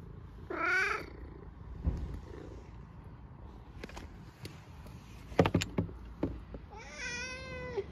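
Domestic cat meowing twice: a short meow about half a second in, and a longer, level meow near the end. A few sharp clicks and knocks fall between them, the loudest about five and a half seconds in.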